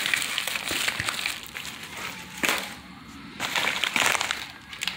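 Plastic bag and padded mailer crinkling and rustling as they are handled, in irregular bursts with small crackles.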